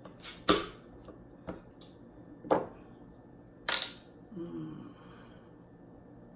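Sharp clicks and knocks of a cherry soda being worked open, four separate strikes with the loudest about two-thirds of the way through and a short hiss after it, followed by a brief low hum.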